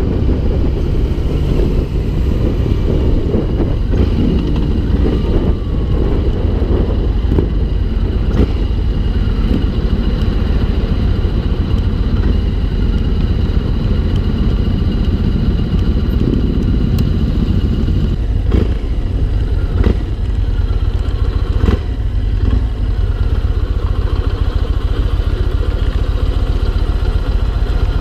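Yamaha MT-01's big air-cooled V-twin engine running as the bike rides through town traffic, a deep low rumble with a few sharp clicks around the middle, settling to a steady idle near the end as the bike pulls up.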